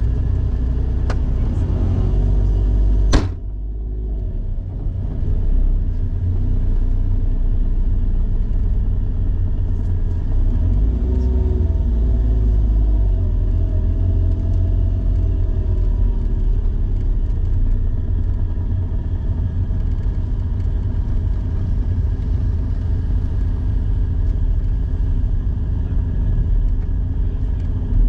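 Autozam AZ-1's small turbocharged three-cylinder engine running at low speed, heard from inside the cabin as a steady low rumble. About three seconds in there is one sharp thump, typical of a gullwing door being pulled shut.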